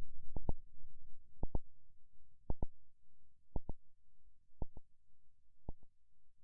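A steady double pulse like a heartbeat's lub-dub, repeating about once a second, over a low rumble that dies away in the first second or two.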